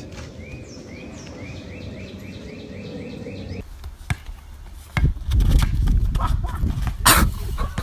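A bird calling in a quick, even series of short rising notes, about four a second, which stops abruptly a little past three seconds in. Then a basketball bounces on an outdoor court, with wind rumbling on the microphone and a loud sharp knock near the end.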